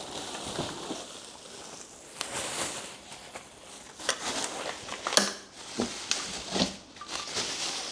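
Plastic wrapping and cardboard rustling as a pressure washer's stand and parts are handled out of their box, with a few sharp clicks and knocks about five to six and a half seconds in.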